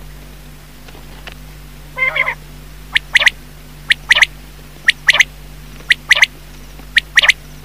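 Common quail (batair) calling: one rasping note about two seconds in, then five quick three-note phrases about a second apart. Each phrase is a sharp note followed by a fast pair, the male's 'wet-my-lips' song.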